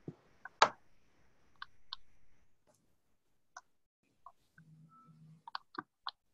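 Scattered clicks of a computer mouse and keyboard being worked, one sharper click about half a second in and a quick run of clicks near the end. A brief low double buzz comes just before that run.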